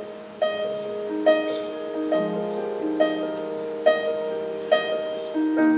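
Solo piano playing slow sustained chords, with a high note struck again about once a second.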